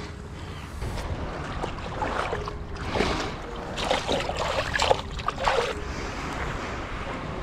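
A hand splashing and swishing in shallow seawater, in a run of splashes from about two seconds in to about six, over wind rumbling on the microphone.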